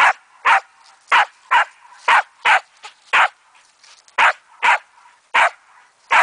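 Samoyed barking over and over, short barks coming about two a second in a steady run.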